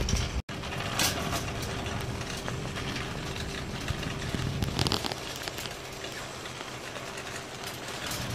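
Wire shopping cart rolling across an asphalt parking lot, its wheels and basket rattling in a steady rumble.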